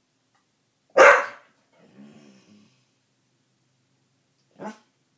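English bull terrier giving one loud, sharp bark about a second in, followed by a low, quieter grumbling sound, and a short, quieter bark near the end.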